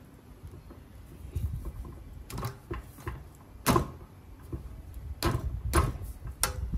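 Sharp clicks and knocks, about six over a few seconds, as parts of a hand push lawn mower are handled and fitted together, over a low rumble of handling.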